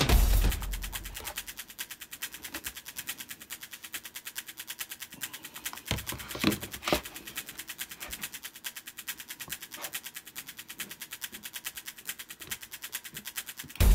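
A polypropylene stacking basket knocking and rattling a few times as it is handled, loudest about six to seven seconds in, over a faint, fast, even ticking at about eight a second. Background music fades out at the start.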